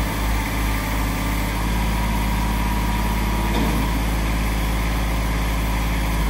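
Kubota compact tractor's diesel engine running steadily while the front loader bucket is lowered and tilted down, with a brief change in the sound about three and a half seconds in.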